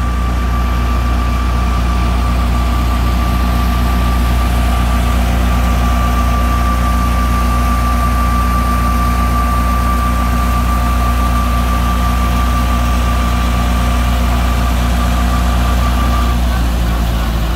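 Tractor-powered wheat thresher running steadily: the tractor's diesel engine drones evenly under load while the thresher turns, with a steady high whine over it that stops near the end.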